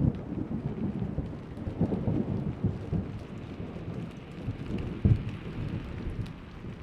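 Thunder rumbling under steady rain. The rumble dies away over the first seconds, with one more low boom about five seconds in, while raindrops patter and tick throughout.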